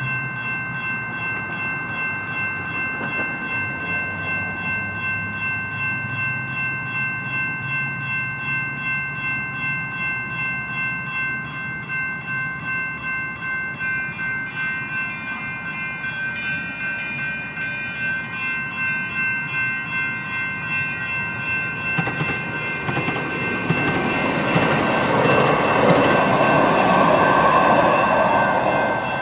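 Electronic railroad-crossing bells (GS Type 2 e-bells) dinging in an even, rhythmic pulse while the gates are down. Over the last several seconds a train rushes through the crossing, its loud rushing noise rising over the bells.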